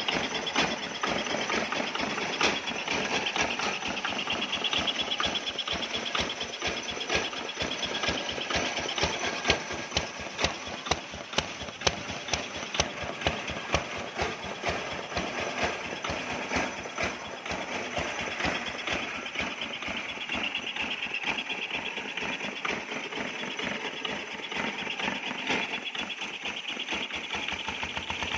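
Kubota 10 hp single-cylinder diesel engine running with a steady, rapid knocking beat, with a run of sharper, louder knocks about a third of the way in.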